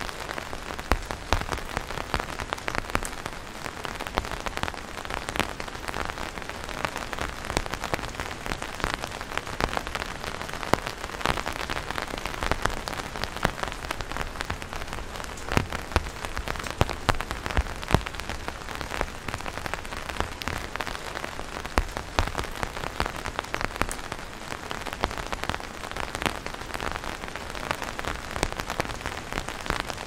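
Steady rain falling on an umbrella held overhead: a constant hiss with many sharp, separate drop hits on the canopy.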